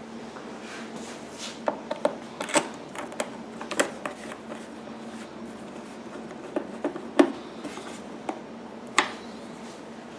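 Irregular sharp clicks and taps of Phillips screws and a screwdriver being fitted into the plastic side panel of a Honda EU1000i generator, in two clusters, one screw into each side.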